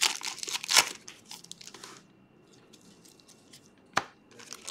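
Plastic wrapper of a Panini soccer trading-card pack crinkling and tearing in gloved hands, with a loud crackle about a second in. A quiet lull follows, then a single sharp click near the end.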